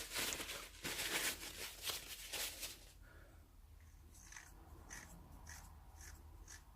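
Hand-spun belt idler pulley from an Opel V6, its bearing freshly packed with grease: about three seconds of rough rushing noise, then a faint regular tick about twice a second. It is a test of whether the regreased bearing has stopped the pulley's noise.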